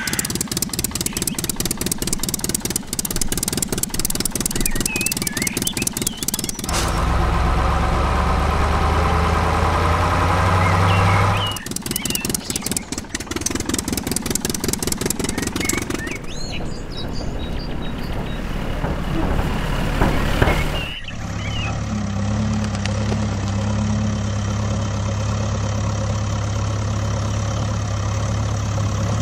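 Truck and tractor engine sounds, idling and running, that change abruptly every few seconds. A rapid clatter alternates with a steady drone and a low hum.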